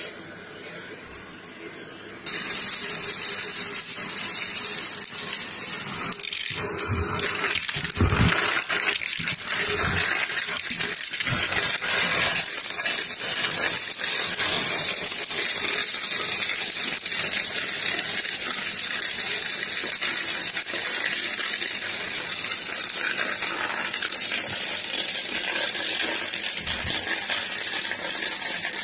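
Shark vacuum cleaner running over carpet with a steady rushing whoosh, stepping up in level about two seconds in, with a few knocks between about six and eleven seconds as it picks up popcorn kernels and craft debris.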